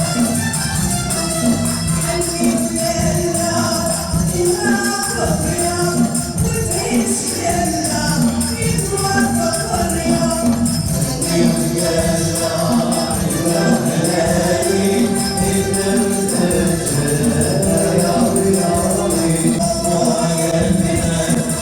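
Moroccan wedding music: a group singing together over tambourines and hand drums keeping a steady beat.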